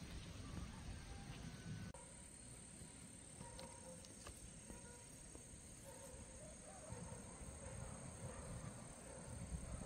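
Faint outdoor ambience. A low rumble, like wind on the microphone, cuts off about two seconds in, leaving a quieter background with faint short calls and a few light ticks.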